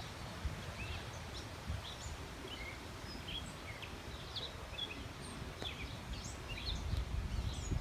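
Several birds chirping, short quick calls scattered throughout, over a steady low rumble.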